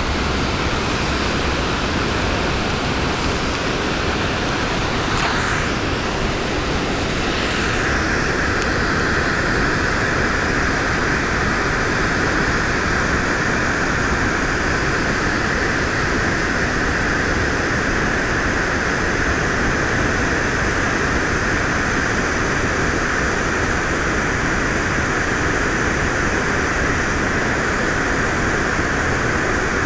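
Snoqualmie Falls, a steady rushing of falling water that grows brighter about eight seconds in.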